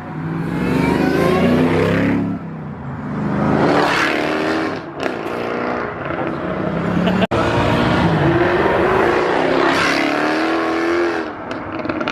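Performance car engines accelerating hard, revving up in several rising runs as they pull away.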